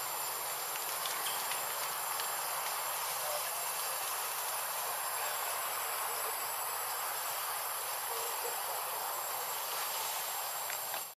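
Steady insect chorus in forest, an even hiss with a thin, unchanging high whine running through it.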